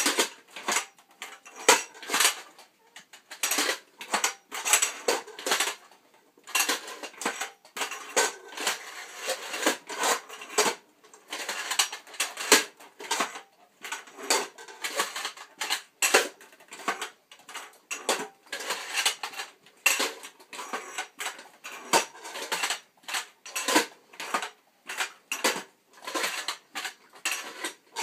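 Metal robot-costume legs clanking and rattling with each step as they are walked across a concrete floor: the metal tube legs, knee joints and bowl-shaped metal feet knocking, with irregular sharp clanks several times a second.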